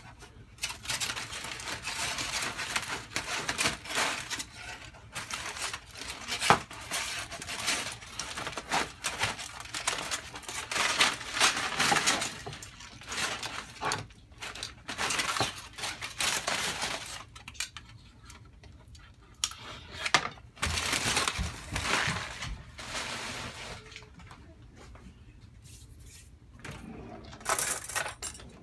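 Aluminium foil crinkling and rustling as it is pulled open and handled, with metal tongs clicking. Near the end, forks and knives rattle in a cutlery drawer.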